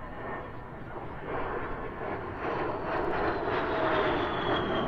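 Military aircraft flying past, its engine noise swelling as it approaches, with a whine that slides down in pitch as it passes.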